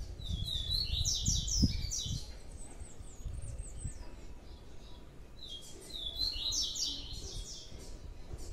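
Small songbird chirping in two bursts of quick, high, repeated notes, the first right at the start and the second about six seconds in.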